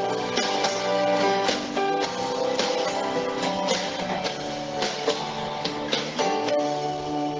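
Instrumental break in a gospel song: strummed guitar chords over a steady band backing, with no singing.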